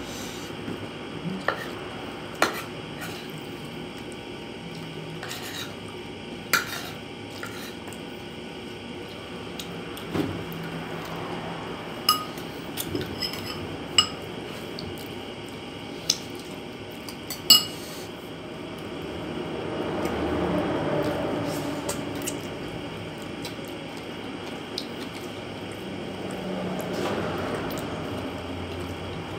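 Metal spoon clinking against ceramic plates every few seconds, about eight sharp clinks, a couple of them ringing briefly, between softer scraping of food on the plate.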